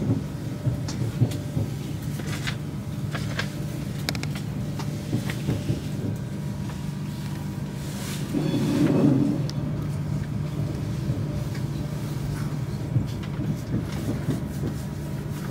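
Inside the cabin of a Frecciarossa 1000 high-speed train rolling slowly into a station: a steady low hum, with scattered clicks and knocks and a brief louder rush about eight seconds in.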